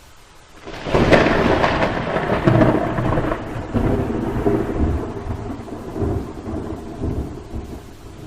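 Thunder: a faint hiss, then a sudden crack just under a second in that rolls into a long rumble with several swells, slowly fading.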